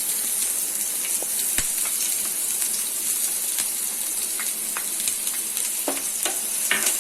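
Chopped onion frying in hot oil in a pan: a steady sizzling hiss with scattered small pops and crackles.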